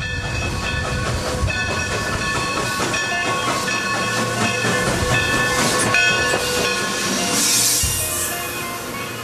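A steady hissing noise, like escaping steam, with sustained tones running through it and a louder burst of hiss about seven and a half seconds in.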